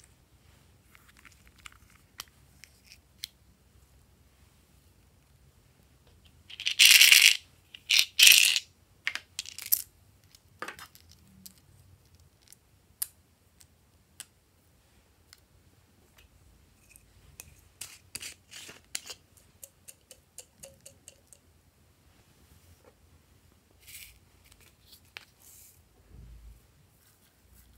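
Small plastic charms, sequins and sprinkles clicking and rattling as they are shaken out of plastic containers and dropped onto slime. Two loud rattling bursts about a quarter of the way in; the rest is scattered light clicks and ticks.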